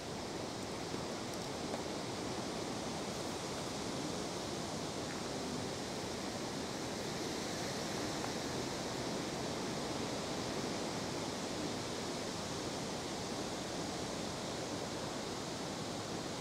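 Steady outdoor hiss with no distinct events, even and unchanging throughout.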